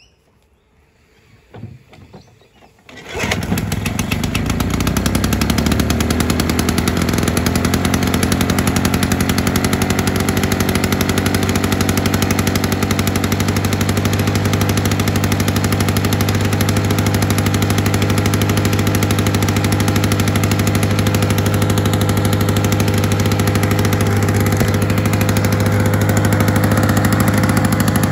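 Victa 160cc two-stroke lawnmower engine pull-started. It catches about three seconds in and runs steadily and loudly. This is its first start after a carburettor rebuild with a new float needle.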